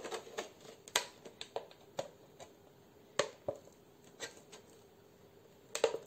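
Scattered sharp clicks and crackles of a thin plastic drink bottle being handled and pierced with small curved scissors. There is a short lull, then a quick cluster of clicks near the end.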